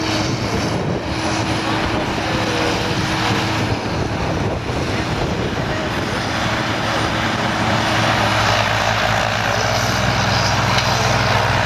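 Big diesel tractor engines droning steadily as the tractors pull ploughs, growing louder from about two-thirds of the way in.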